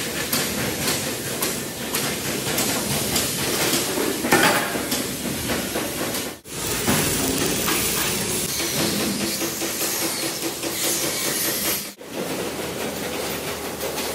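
Factory workshop noise: continuous metal clatter and knocking over a hissing background, cutting abruptly to a new stretch of the same kind of noise twice.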